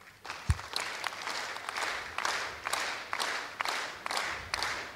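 Audience applauding, the claps falling into a regular rhythm of about two a second. A single dull thump about half a second in.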